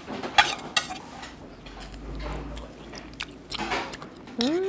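Chopsticks and a spoon clicking and scraping on a ceramic plate and an earthenware soup pot as small scraps of beef knee cartilage are pushed into the soup, then spooning and eating sounds. Near the end a short hummed "mmm" rises and falls in pitch.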